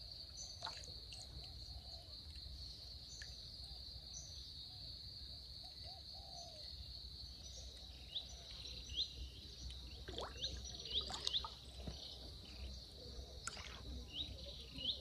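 Rural outdoor ambience: a steady high-pitched insect drone, with short rising bird chirps in the second half and a few brief rustles or knocks about ten seconds in.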